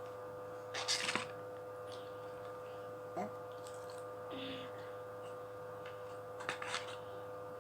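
Small bottles being handled and knocked together by a baby, in two short bursts of clicking and rattling, about a second in and near the end, over a steady electrical hum. A short rising squeak comes about three seconds in.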